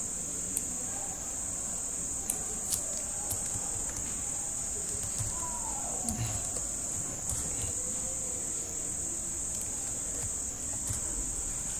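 A steady high-pitched whine, with a few scattered light clicks of typing on a computer keyboard.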